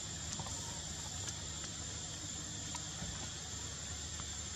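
Steady forest ambience: a constant high-pitched insect drone with a low rumble beneath it and a few faint ticks.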